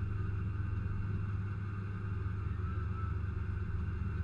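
A lifted S-10 ZR2's engine idling steadily, heard close up through a camera mounted on its hood.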